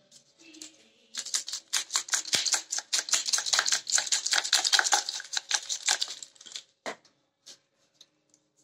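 Plastic spice shaker shaken rapidly over a plate, a fast rattling tap about six times a second for several seconds as spice powder is sprinkled out. A single knock follows near the end.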